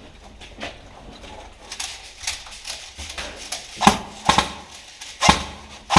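A series of sharp, irregular knocks or clicks, faint at first, then several louder ones from about four seconds in.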